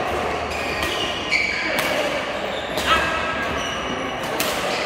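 Badminton rackets striking shuttlecocks in a large echoing hall, a few sharp hits at irregular intervals, with short high squeaks of sports shoes on the court floor between them.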